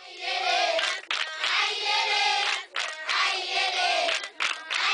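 A group of voices singing together in short repeated phrases, each a second or so long with a brief break between.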